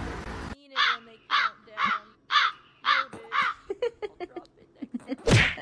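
Small long-haired dog giving six short calls, about two a second, followed by a few quieter short sounds and one loud short noise near the end.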